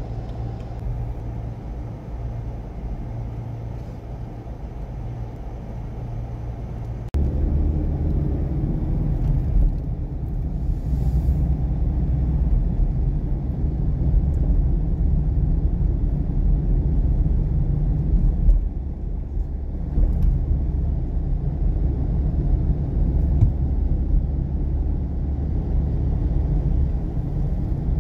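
Low, steady rumble of a car's engine and tyres heard from inside the cabin while driving through town. The rumble steps up abruptly about seven seconds in and stays louder.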